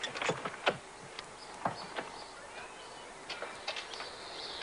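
Scattered clicks and knocks as an Alfa Romeo 164's doors are unlatched and swung open, with faint bird chirps near the end.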